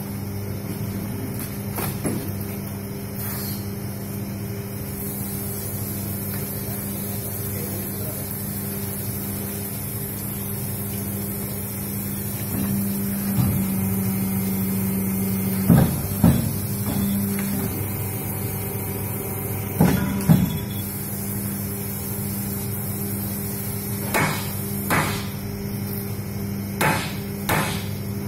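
Double-die paper plate making machine running with a steady motor hum. Sharp knocks from the press come every few seconds, mostly in pairs.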